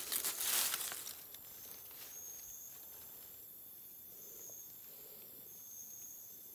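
Dry leaf litter crackling and rustling for about a second as a hand grabs a dead squirrel from the forest floor. Then quiet, with an insect calling in three short, high thin trills.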